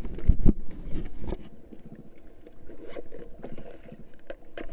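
Handling noise on a stand-up paddleboard at sea: scrapes, rubbing and knocks against the board, with heavy low thumps in the first second and a half and scattered short knocks after.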